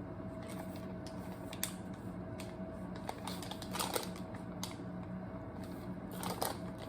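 MRE packets and pouches being handled: a few scattered clicks and crinkles over a steady low hum.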